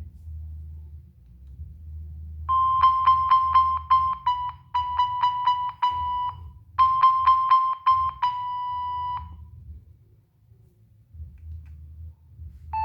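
Nokia 6585i polyphonic ringtone playing: one high note repeated rapidly in two phrases, starting a couple of seconds in and stopping a few seconds before the end, over a low hum. A new ringtone with changing notes begins right at the end.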